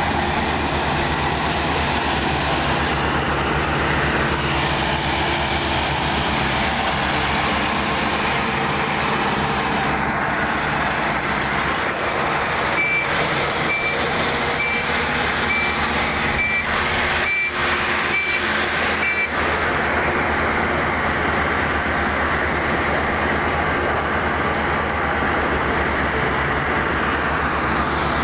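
Combine harvester running steadily at work, its engine a continuous drone. Around the middle, a reversing alarm beeps about ten times at an even pace.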